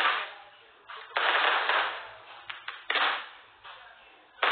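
Fireworks going off: four loud bangs a second or two apart, each fading out over about half a second, with a few smaller pops between them, heard through a phone's live-stream audio.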